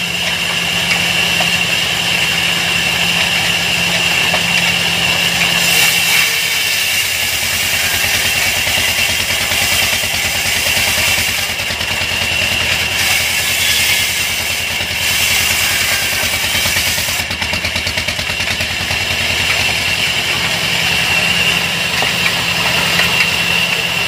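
Old diesel engine running steadily, belt-driving a band sawmill, with a steady high whine from the saw drive. From about six seconds in to about seventeen, the blade cutting through a log adds a hiss and the engine note drops under the load, rising again near the end.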